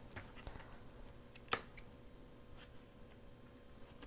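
Faint clicks and rustles of a pair of craft scissors being picked up and paper being handled, with one sharper click about a second and a half in and a short snip of the blades against the paper near the end, over a faint steady hum.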